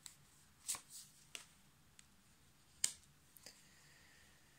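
Tarot cards being handled as one is drawn from the deck and laid on the spread: a few faint, short clicks and soft snaps of card stock, the sharpest about three seconds in.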